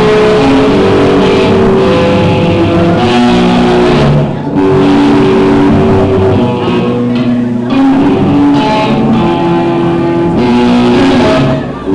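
Live heavy metal band playing, an electric guitar carrying a melody of held, sustained notes over distorted rhythm guitar, bass and drums, with brief drops in loudness about four seconds in and near the end.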